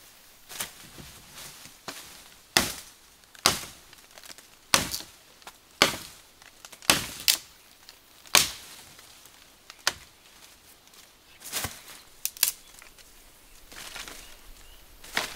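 Machete chopping into a wooden pole: about a dozen sharp blows, mostly about a second apart, some coming in quick pairs.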